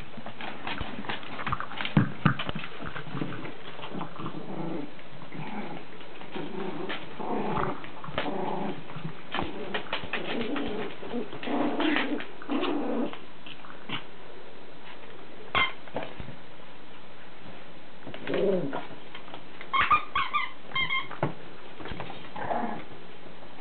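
Chihuahua puppy making short play sounds while playing with its toys, with scattered knocks and scuffles throughout and a quick cluster of higher short sounds a little before the end.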